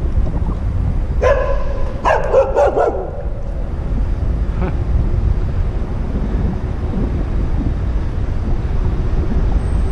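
A dog barks twice in quick succession about a second in, over steady wind rumble on the microphone of a moving camera.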